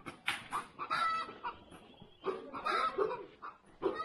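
Domestic chickens clucking, a run of short, separate calls.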